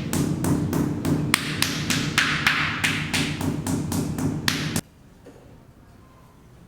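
Rapid, even knocks, about four a second, over a low steady hum; they cut off suddenly about five seconds in.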